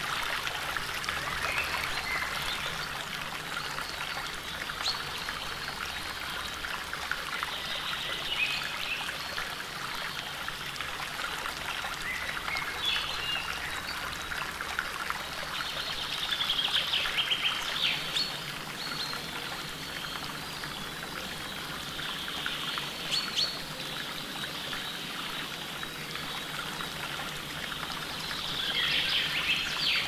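Shallow, clear stream trickling and babbling steadily over pebbles and stones, with short bird chirps now and then.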